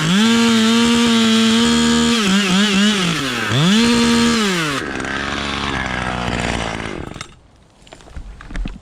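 Chainsaw running at high speed while cutting wood, its pitch dipping briefly several times. About five seconds in it is let off and the engine winds down. Once it has quieted there are light crackles and a thump near the end.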